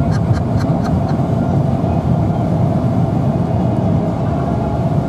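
Steady road and engine noise inside a moving car's cabin at highway speed, with a quick run of light ticks in the first second.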